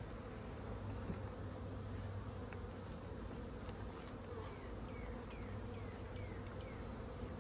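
Honeybees humming at an open hive: a steady drone of many bees.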